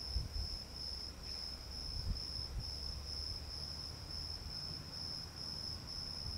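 An insect chirring steadily outdoors: a high-pitched pulsed trill of about two to three pulses a second, over a low rumble of wind on the microphone.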